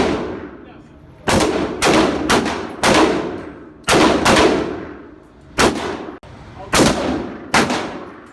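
A string of about nine single gunshots at irregular intervals, each sharp crack trailing off in a short echo.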